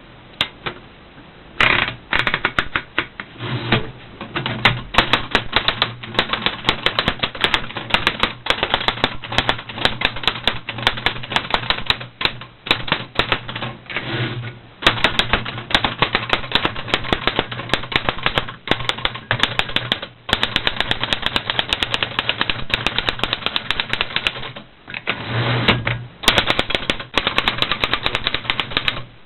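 1917 Remington No. 10 manual typewriter being typed on: a rapid stream of key strikes, several a second, starting about two seconds in and broken by a few short pauses.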